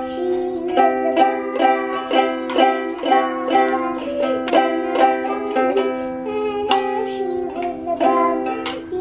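Background music: a bright plucked-string tune, ukulele-like, with a steady rhythm of about two notes a second.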